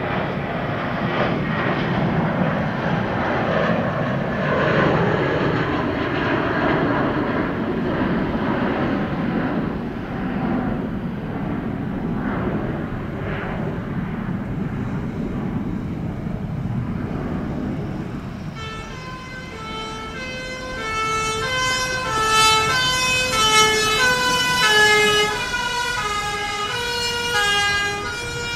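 Jet aircraft engine noise runs loudly with a slow swell. About two-thirds of the way in, a fire engine's two-tone siren starts up, switching back and forth between a high and a low note.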